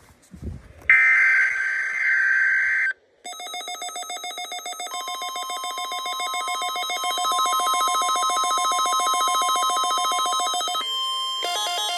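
A short screech of NOAA Weather Radio digital header data, then weather alert radios set off by it, beeping rapidly and growing louder. About five seconds in, the broadcast's steady 1050 Hz warning alarm tone joins. Near the end, another receiver's alarm starts in a different, alternating pattern. Together they are the required weekly test of the weather alarm system.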